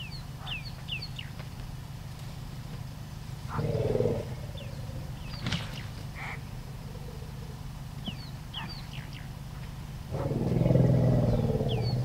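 African elephants growling with deep calls, a short one about three and a half seconds in and a longer, louder one from about ten seconds. Birds chirp with short, high, falling notes throughout, over a steady low hum.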